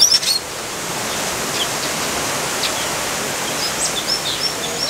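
Steady rush of water, with short high chirps of small birds over it: a quick cluster right at the start, then scattered single chirps, a few more toward the end.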